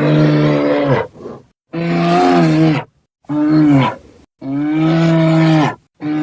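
Cartoon dragon roar sound effects: about five deep, steady-pitched roars, each roughly a second long, separated by brief silences.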